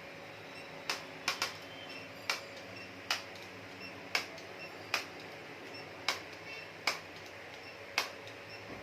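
A series of sharp clicks, roughly one a second at slightly uneven spacing, over a faint steady hum.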